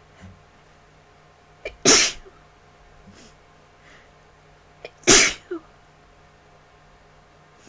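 A person sneezing twice, about three seconds apart. Each loud sneeze comes right after a brief, sharp catch of breath.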